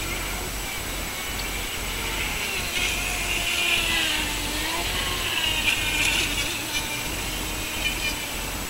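Atomik Barbwire radio-controlled boat running fast on open water: a high electric-motor whine with water spray that swells louder twice as the boat sweeps past.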